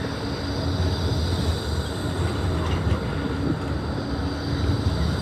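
Melbourne low-floor articulated tram moving slowly past the platform, a steady low rumble of its motors and wheels on the rails.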